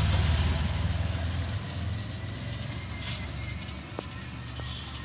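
A vehicle engine running with a low rumble that is loudest at the start and slowly eases off.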